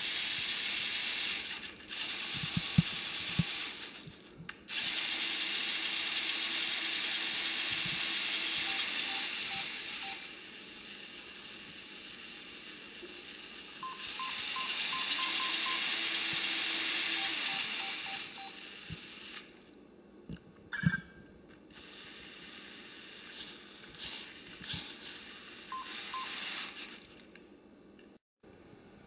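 LEGO Mindstorms NXT motors whirring through their gears in several bursts of a few seconds each. Short strings of electronic beeps come from the NXT brick as its buttons are pressed, along with a few sharp clicks.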